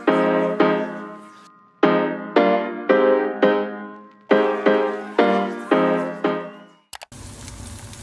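Solo piano background music: chords struck in short phrases, each ringing and fading away. The music stops about seven seconds in, leaving a faint steady hiss and hum.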